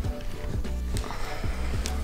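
Background hip-hop music with a steady beat and a repeating bass line.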